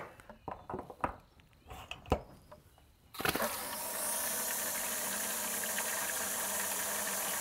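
A few sharp clicks and knocks as the cover of an Aquor wall-mounted water hydrant is flipped open and a quick-connect hose fitting is snapped in. About three seconds in, water starts gushing steadily from the hose into a plastic bucket.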